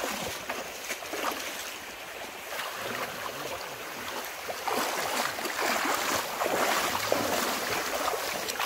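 Shallow water sloshing and splashing as people wade through it in waders, pushing long-handled scoop nets. The splashing gets louder about halfway through.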